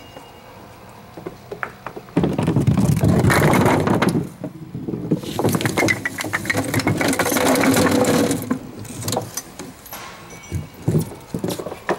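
Homemade string pinsetter hoisting ten small wooden bowling pins on their cords. The lifting mechanism runs in two loud, rattling stretches, with the wooden pins clattering against one another. Near the end come scattered sharp knocks as the hanging pins swing and bump.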